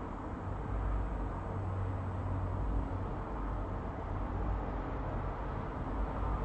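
Steady background room noise: a low rumble with a hiss over it, and no distinct events.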